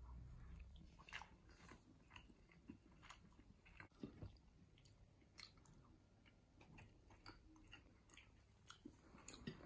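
Faint chewing of a mouthful of waffle with ice cream and fruit, with scattered small clicks.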